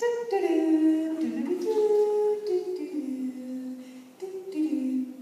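A voice humming a slow tune in held notes that step up and down.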